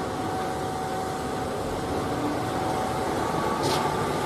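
Concrete mixer truck running, a steady engine hum with street noise.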